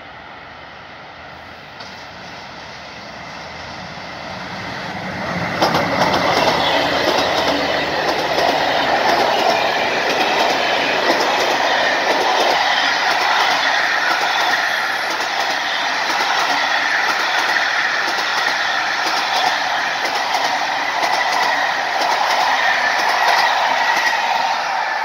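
An 18-car express passenger train approaches, growing louder over the first few seconds, and from about five seconds in it passes close by at speed. There is a steady rush of rolling coaches, with rapid clicking of wheels over rail joints and a high, steady ring from the wheels.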